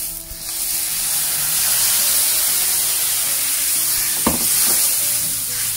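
Curry paste mixed with coconut milk poured into hot oil with frying onion, garlic and chilli in a wok, sizzling up loudly and then frying steadily as it cooks until the oil separates. A wooden spatula stirs it and knocks once against the wok about four seconds in.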